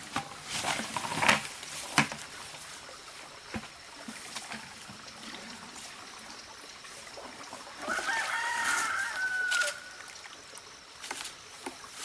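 A rooster crows once, one long call starting about eight seconds in and falling at the end. A few sharp knocks come in the first two seconds.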